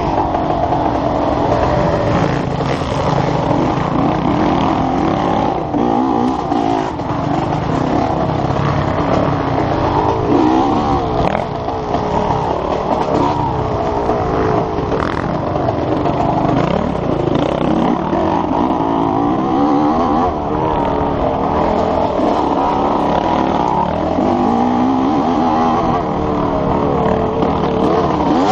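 Enduro dirt bike engine ridden hard, heard close up from the rider's helmet, revving up and down continually as the throttle is opened and shut along the trail.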